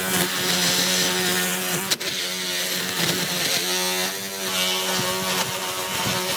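A power tool, motor or small engine, running at a steady speed and briefly breaking off about two seconds in.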